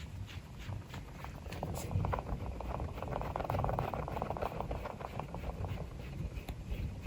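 Pet rabbit making a rapid buzzing grunt that swells about a second and a half in and fades near the end.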